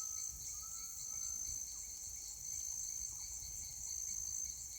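Steady chorus of rainforest insects, a continuous high-pitched trilling, with a faint whistled note in the first second and a half.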